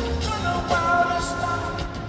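Live band playing rock music, heard from the audience in a large concert hall: held pitched tones over a steady beat of drum and cymbal strikes.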